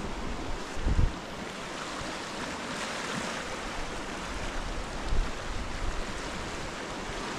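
Fast-flowing river in spate rushing steadily below a footbridge. Wind gusts buffet the microphone with low thumps about a second in and again around five seconds.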